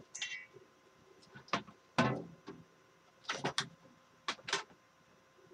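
Objects being handled and set down on a workbench: a string of short knocks, clicks and clunks, the loudest about two seconds in.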